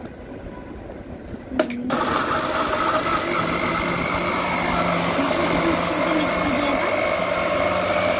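Electric blender switched on with a click about two seconds in, then running steadily with a motor whine, churning chopped mango with milk powder, sugar and water into a thick shake.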